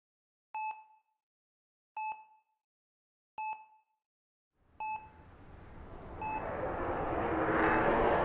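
Hospital patient monitor beeping, a single short high tone about once every one and a half seconds. From about halfway through, a rush of noise swells up and keeps growing louder, covering the later beeps.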